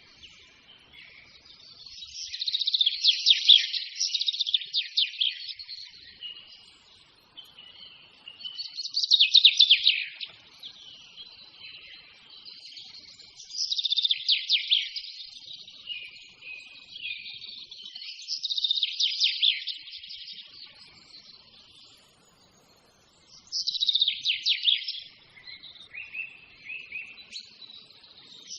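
Songbird singing: loud phrases of rapid, high chirping notes about every five seconds, with softer twittering in between.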